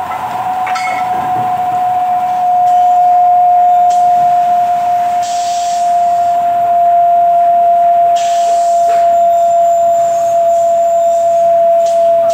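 Milling machine running with a steady high-pitched whine that drifts very slightly lower in pitch, with two short hisses about five and eight seconds in.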